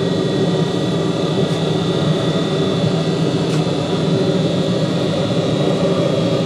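A steady mechanical drone, a dense low hum with a few thin, high held tones over it, and two faint ticks about one and a half and three and a half seconds in.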